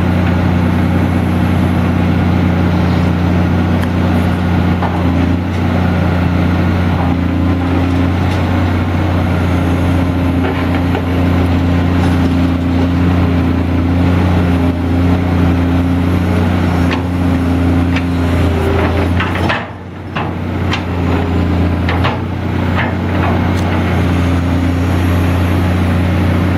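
Diesel engine of a CAT 345BL excavator running at a steady speed, with scattered clanks and knocks over it. About three-quarters through, the engine note dips sharply for a moment and comes back, followed by a run of sharp knocks.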